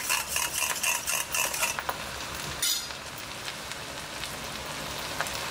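A spoon stirring and clinking quickly in a small steel bowl of green chilli sauce and water for about two seconds. Then a steady sizzle as the sauce is poured onto rice in a hot, thin wok.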